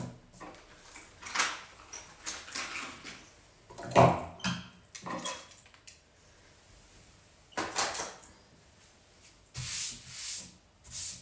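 Hands rubbing and brushing across a tabletop: a string of short, irregular scraping and rustling sounds, the loudest about four seconds in.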